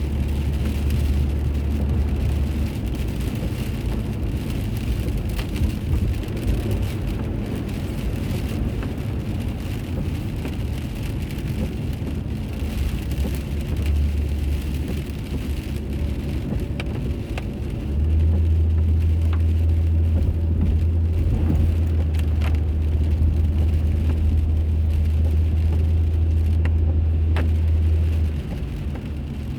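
Driving noise inside a car picked up by a dashboard camera: a steady haze of tyre and road noise with a loud low rumble that comes and goes, strongest from just past the middle until near the end.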